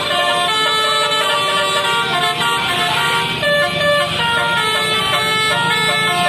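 Basuri telolet multi-tone bus horn playing a quick tune, its several horn notes stepping from chord to chord every fraction of a second with no break.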